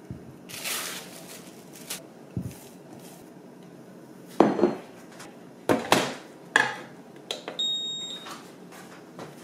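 Plastic cling wrap rustling as it is pulled off a glass mixing bowl. Then several knocks as the bowl, the dough and a ceramic plate are set down on the counter and on a digital kitchen scale, with one short high electronic beep from the scale near the end.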